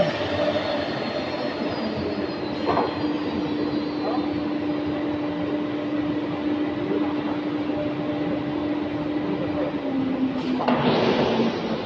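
Multi-spindle CNC router with dust extraction running while carving a wooden door panel: a steady spindle whine over machine and airflow noise. Near the end the whine dips slightly in pitch and a loud burst of hissing air starts.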